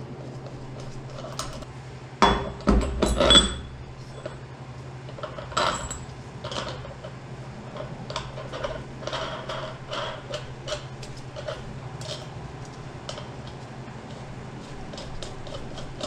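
Steel parts of a collet bearing puller clinking and clanking as a spacer and washer are slipped over the threaded rod in the wheel hub, loudest in a few clanks about two to three and a half seconds in and again near six seconds. After that comes a run of light, irregular metal clicks as the small nut is threaded back on by hand, over a steady low hum.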